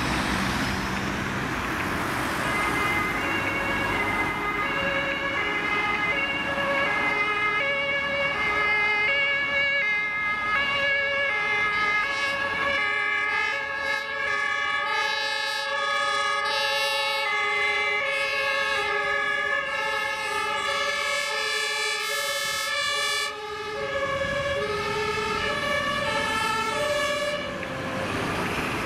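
Several German two-tone fire-service sirens (Martinshorn) on a fire engine and an ambulance, sounding together and out of step, setting in about two seconds in, over passing traffic.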